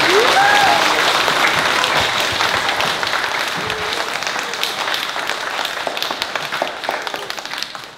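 Audience of many people applauding, a dense patter of clapping hands that gradually thins and fades toward the end.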